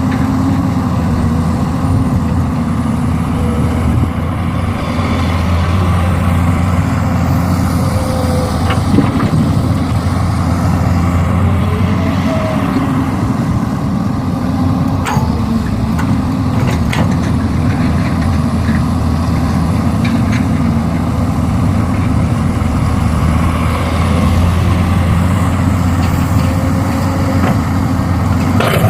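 Heavy diesel engine running steadily under a constant low drone, with a few sharp metallic clanks in the middle.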